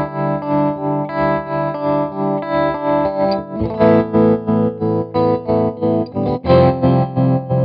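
Electric guitar chords played through a Red Witch Pentavocal analog tremolo pedal, the volume pulsing evenly about two and a half times a second. The chord changes twice.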